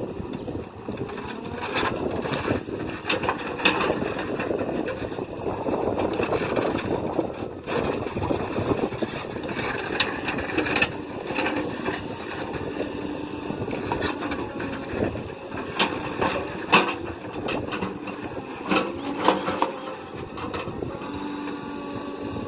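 JCB 3CX backhoe loader's diesel engine running under load as the backhoe digs, with frequent sharp clanks and knocks from the bucket and arm working in the soil.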